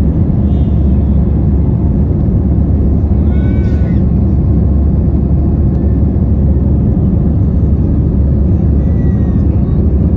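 Steady, loud, low cabin noise of a jet airliner climbing after takeoff: engine thrust and rushing air heard from a window seat over the wing.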